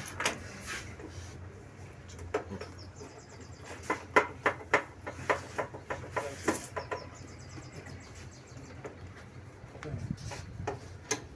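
Sharp knocks and clicks from hands and tools fixing a fire alarm panel's enclosure to a wall, a quick run of about eight in the middle. Two brief high-pitched trills are heard, one a few seconds in and one near the end.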